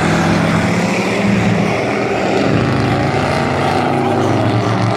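Engines of several dirt-track race trucks running at racing speed, their pitches overlapping and shifting as they pull through the turn.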